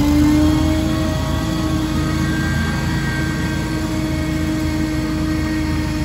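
SCAG Windstorm stand-on blower's 37-horsepower engine and fan running hard, with a whine that finishes climbing in pitch about half a second in and then holds steady over a low engine rumble.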